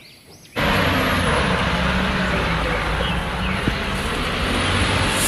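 A Cat 972M wheel loader's diesel engine running steadily with a deep low drone, cutting in suddenly about half a second in.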